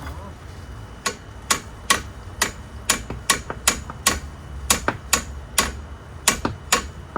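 Hammer striking metal on a car's front wheel hub assembly, about a dozen sharp ringing blows at roughly two a second, starting about a second in.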